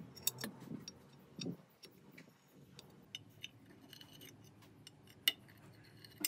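Kitchen knife cutting set young-coconut agar jelly in a ceramic baking dish, its blade clicking faintly against the dish at irregular intervals, with one sharper click about five seconds in.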